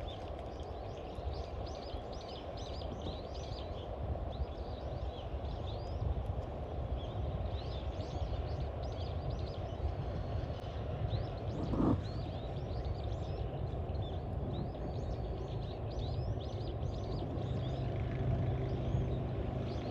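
Outdoor ambience: many small birds chirping over a steady low rumble. About twelve seconds in there is one brief louder sweep in pitch.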